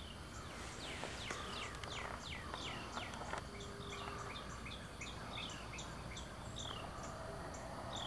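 Wild birds chirping outdoors: many short, high chirps that fall in pitch, repeated over and over, with faint higher ticks behind them.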